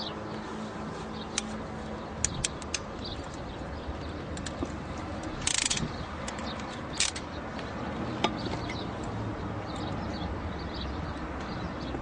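Ratcheting crimp tool clicking as it crimps an N connector onto LMR400 coax cable, with a short rasping burst about five and a half seconds in, over a steady low background rumble.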